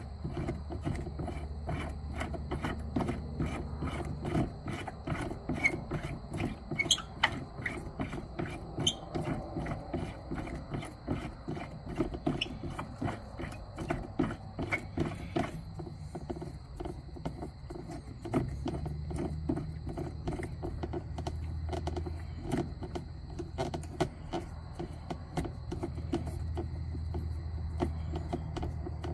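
Rapid, uneven clicking and scraping of parts being fitted by hand, thickest in the first half, over a steady low hum that grows stronger about two-thirds of the way through.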